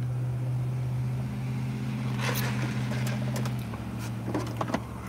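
Steady low hum of a truck idling, heard inside the cabin, easing off about three and a half seconds in. A slurp through a straw comes about two seconds in, and a few light knocks and clicks follow as a plastic cup is set down and a phone is handled.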